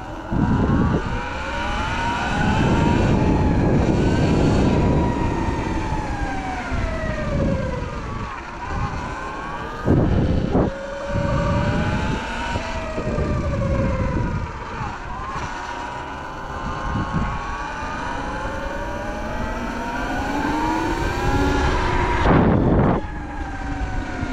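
Surron electric dirt bike riding, its motor and drive whining in several tones that rise and fall as it speeds up and slows down. Wind rumbles on the microphone throughout, with two sharp jolts, about ten seconds in and near the end.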